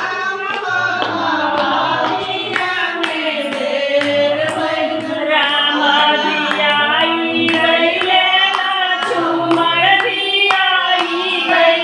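A devotional song sung with steady rhythmic hand-clapping keeping the beat, over a low steady accompanying tone.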